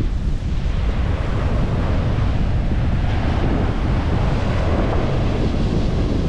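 Ocean surf washing on a beach, mixed with wind buffeting the microphone; the surf swells louder about halfway through.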